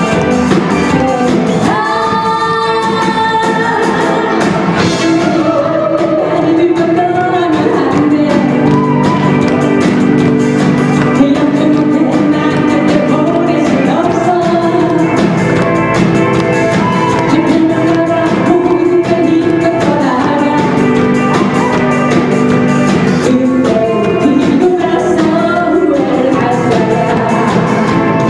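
Live amateur band playing a song through a PA, with drum kit, electric guitars, bass, keyboard and a singer singing the melody.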